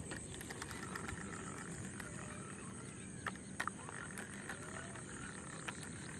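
Frogs calling faintly, with a couple of sharp clicks near the middle.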